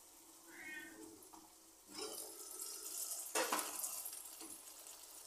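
Chicken with shallots and dried red chillies simmering in a non-stick pan, bubbling and sizzling in the juices released from the chicken as the steel lid comes off about two seconds in. A metal knock about three and a half seconds in as the lid is set down, and a brief high tone near the start.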